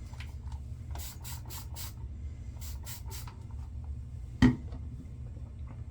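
Short rubbing strokes of shaving lather gear across the stubble, four quick ones and then three more, at the start of a second shaving pass. About four and a half seconds in comes a single sharp knock, the loudest sound.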